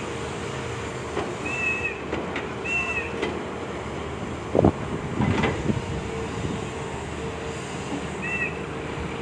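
Excavator at work: a steady mechanical hum with a held tone, short high squeaks, and two loud knocks about halfway through.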